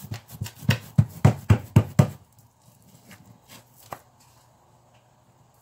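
Palms slapping a disc of bulgur kubba dough flat on a plastic sheet: a quick run of pats, about four a second, that stops about two seconds in. Fainter handling and a single click follow as the disc is lifted.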